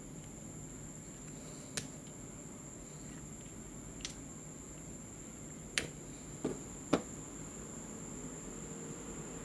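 Five short, sharp clicks and taps of tools and small saw parts being handled, spread across several seconds with the last the loudest, over a steady room hum with a faint high whine.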